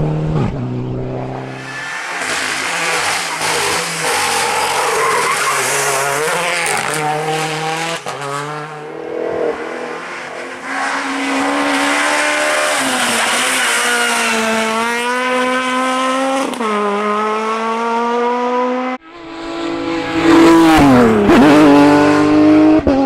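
Rally car engines at full throttle on a special stage: the engine note climbs in steps through the gears, with drops at each shift. About 19 seconds in the sound cuts off suddenly and another rally car's engine takes over, its pitch rising and then falling sharply as it passes.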